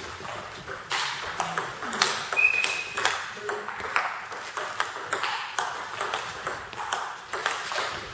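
Table tennis rally: the ball clicks in quick irregular succession off the bats and the table top, each click ringing briefly in the hall. One bat is faced with Nittaku Monophonic inverted rubber under test. A brief high squeak sounds about two and a half seconds in.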